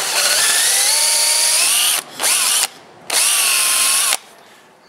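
Electric drill with a 1/4 inch bit boring a hole through a piece of wood. It runs in three trigger pulls: a long run whose whine climbs in pitch as the motor speeds up, a brief burst, then a second steady run that stops about four seconds in.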